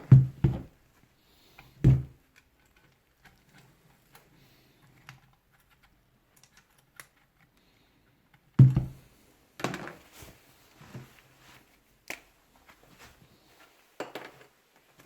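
Scattered clicks and knocks of small parts being handled while a rotary hammer is taken apart by hand. There are two louder knocks, about two seconds in and near the middle, with faint ticking between them.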